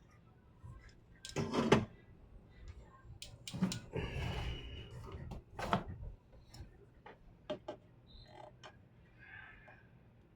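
Handling noise from repair work: scattered knocks, clicks and a short scraping clatter as objects are picked up and set down, loudest about a second and a half in and again from about four to six seconds in.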